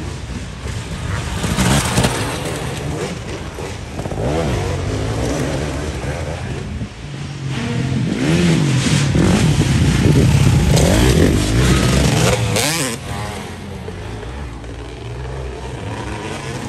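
Off-road dirt bike engines revving up and down as the bikes ride a twisting wooded trail. The engine noise swells loudest about eight to twelve seconds in as a bike comes close, then falls back.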